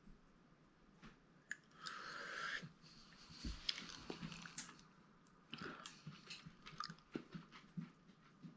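Faint wet mouth noises: lip smacking and small tongue clicks, with a breath about two seconds in, from a man whose mouth is burning after eating a Carolina Reaper chilli.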